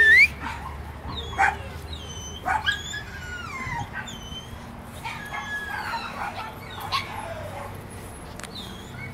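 Dogs yipping and whimpering: short, high cries that fall in pitch, coming every second or so.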